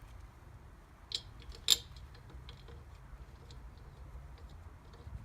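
Two sharp clicks about half a second apart, a little over a second in, then a few faint ticks, from tools and parts being handled while fitting rear brake drums, over a faint steady low hum.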